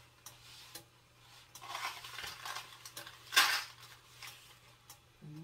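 Cookware and utensils being handled: scattered light clinks and a stretch of rustling, then one loud, short clatter about three and a half seconds in.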